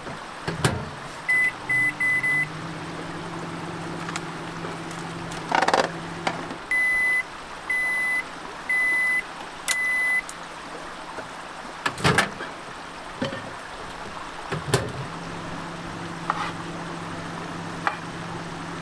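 Microwave oven beeping: three quick keypad beeps, then four longer beeps a few seconds later, with a low steady hum at times and a few knocks.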